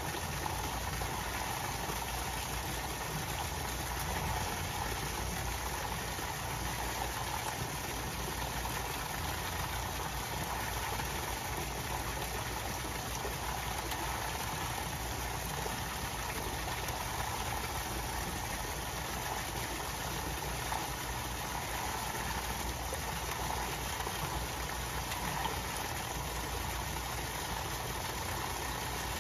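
Steady splashing of water pouring from a pipe into a koi pond, with a low, constant hum underneath.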